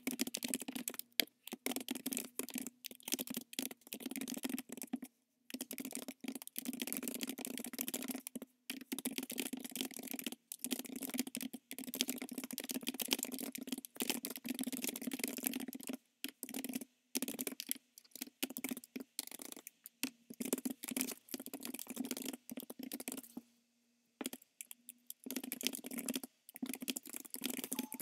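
Typing on a computer keyboard: quick runs of key clicks broken by short pauses, with a longer pause near the end. A low steady hum runs underneath.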